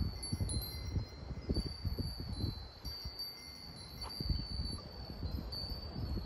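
Many Japanese wind chimes (furin) ringing together, a steady cluster of high, clear tinkling tones, over low irregular thumps and rumble.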